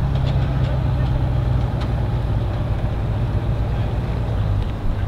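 An engine idling steadily, a low even rumble, with a few faint ticks on top.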